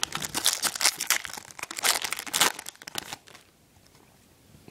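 Foil wrapper of a trading-card pack being torn open and crinkled: a quick, dense run of crackles that stops about three seconds in.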